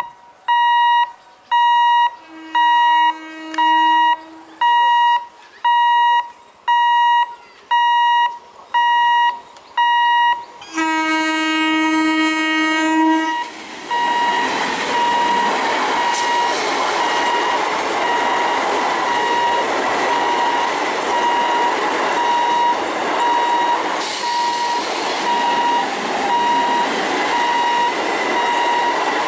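Level-crossing warning alarm beeping about once a second. An electric MEMU train sounds a faint horn about three seconds in and a loud horn blast of about two and a half seconds near eleven seconds. From about fourteen seconds the train passes at speed with a steady rush of wheels on rail while the alarm keeps beeping.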